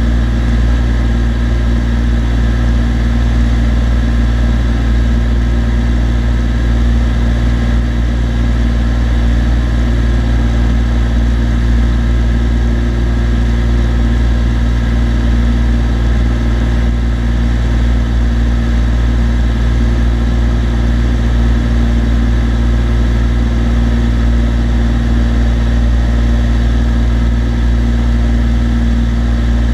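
Cessna TU-206D's turbocharged six-cylinder engine and propeller droning steadily in flight, heard from inside the cabin.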